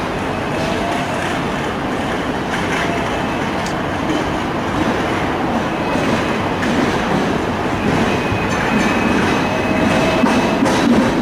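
Hong Kong double-decker electric tram coming along the street rails: a steady rumble of steel wheels on track that grows louder, with faint thin wheel squeals about halfway and again near the end.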